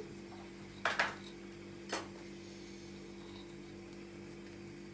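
Two light clinks of a small glass jar of baking soda being handled, about a second in and again about a second later, over a steady low hum.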